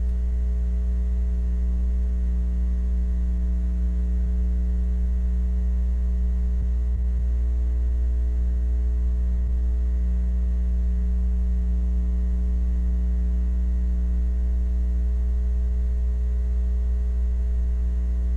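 Steady low electrical hum with a ladder of overtones and nothing else on the soundtrack: mains hum left where the film's music is missing.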